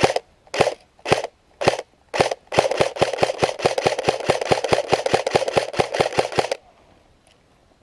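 Airsoft gun firing: single shots about twice a second, then a fast full-auto string for about four seconds that stops suddenly.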